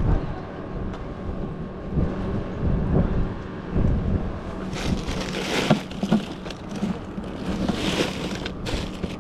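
Wind buffeting the microphone, a steady low rumble with scattered knocks, and two longer hissing rushes about five and eight seconds in.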